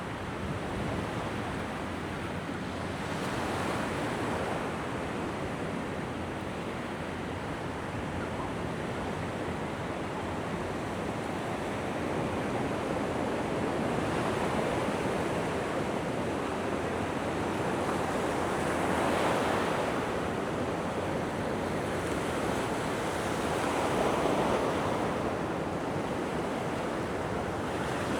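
Mediterranean sea waves washing onto the beach: a steady rush of surf that swells louder several times as waves break.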